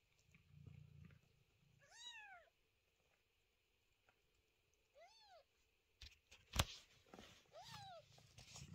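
Newborn kitten mewing: three short, thin cries, each rising and falling in pitch, spaced about three seconds apart. A sharp tap comes shortly before the last cry.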